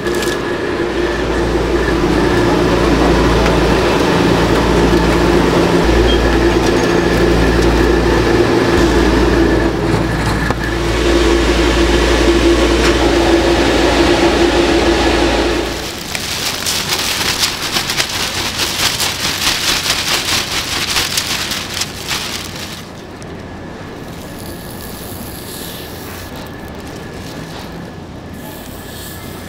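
Steady, loud, deep mechanical rumble with a constant hum, like a kitchen machine or fan running. It stops abruptly about halfway through and gives way to several seconds of dense crackling, then a quieter steady background noise.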